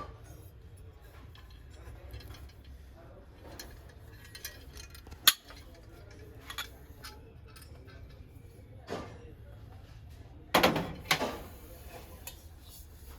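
Brass kitchenware being handled and set down: scattered clinks and knocks, the sharpest about five seconds in and a short cluster of clatters near the end, over a low steady hum.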